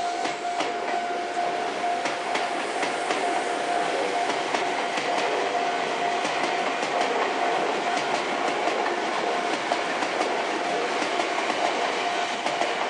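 Sagami Railway electric commuter train running past, its wheels clicking over the rail joints in quick irregular clicks. A level-crossing bell rings as a steady high tone throughout.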